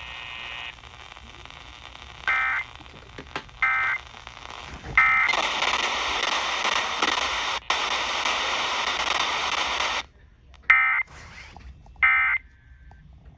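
Weather-radio EAS broadcast between messages: three short warbling bursts of SAME digital data about a second apart, the pattern of the end-of-message code, then several seconds of loud radio static hiss that cuts off suddenly, then another three identical data bursts.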